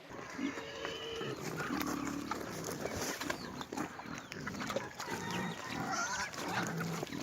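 Farm animals calling: many short calls over a steady background.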